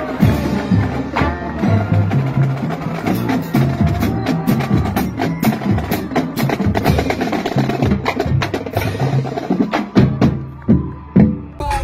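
Marching band playing: trombones and sousaphones over a drum line of snare and bass drums keeping a steady marching beat. Near the end the sound cuts abruptly to other music.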